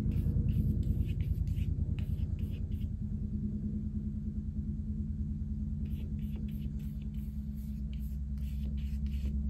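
Flat synthetic brush stroking acrylic paint onto mixed-media paper in quick back-and-forth strokes, a soft scratchy brushing that comes in bursts with a pause in the middle.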